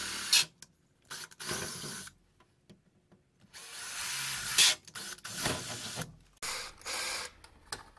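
Cordless drill with a 13/64 bit boring holes up through a clear windshield panel. It runs in several short bursts of about a second each, with pauses between.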